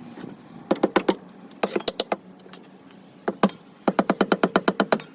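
Hand tools knocking on the steel of a tractor wheel during a manual tyre change: sharp, ringing metal knocks in short groups of three or four, then a fast run of about a dozen in the last second.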